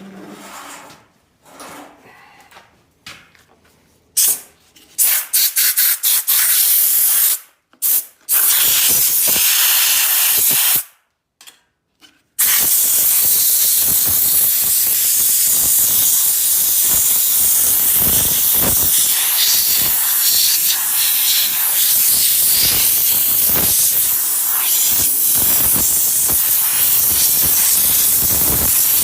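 Compressed air hissing from an old air chuck used as a blow gun, blowing debris out of a chainsaw. Several short blasts start about four seconds in, then a continuous blast from about halfway on.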